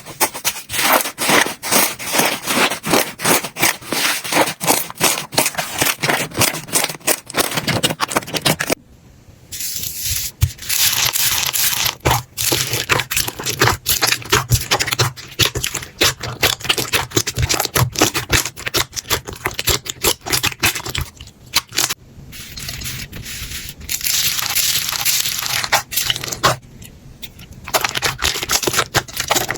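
Slime being squeezed and pressed by hand, giving a dense run of crackling, popping clicks and scraping sounds, broken by a few short pauses.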